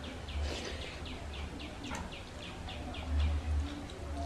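A bird calling: a quick run of about a dozen short chirps, each sliding downward, about five a second, ending about three seconds in. A low rumble runs underneath.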